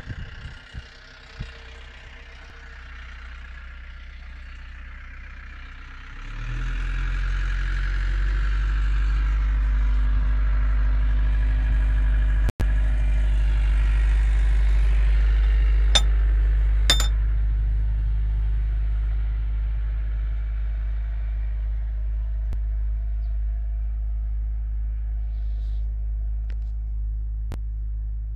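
New Holland Kobelco E50B SR mini excavator's diesel engine: a quieter low hum, then about six seconds in it picks up sharply to a loud, steady run. Two light metallic clinks come a little past halfway.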